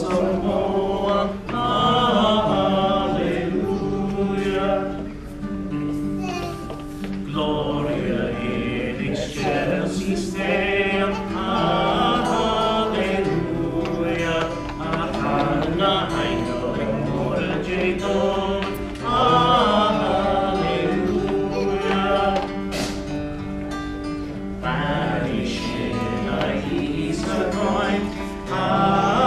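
Small mixed group of men's and women's voices singing a Christmas song in Irish, with acoustic guitar accompaniment.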